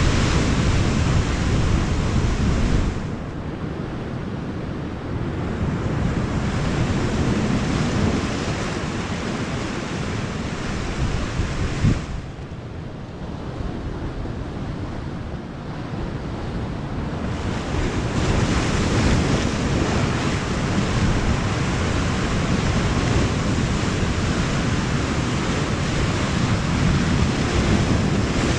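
Sea surf washing against the shore with wind buffeting the microphone, the gusts rising and falling; a single sharp knock about twelve seconds in.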